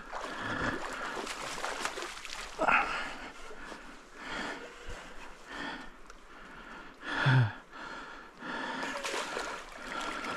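Hooked chum salmon thrashing and splashing at the surface of shallow river water, in irregular bursts with two louder splashes, about a quarter and three quarters of the way through.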